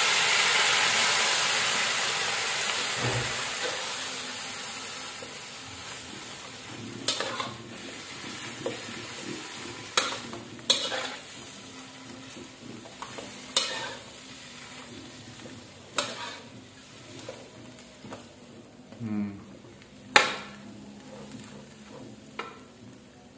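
Water spinach sizzling in a hot wok just after going in wet, the hiss dying away over the first six or seven seconds. Then a metal spatula tosses the greens, with sharp knocks and scrapes against the wok every second or two over a quieter frying hiss.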